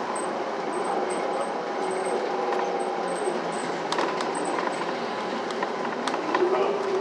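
Inside a New Flyer city bus under way: steady engine and road noise, with a few sharp rattling clicks about four and six seconds in and the engine note rising and falling near the end.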